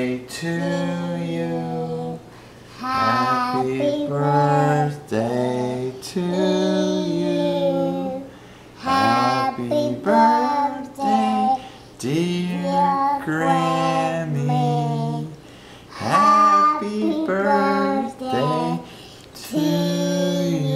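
Unaccompanied singing: a voice sings a slow tune in held notes, in phrases of one to two seconds with short pauses between.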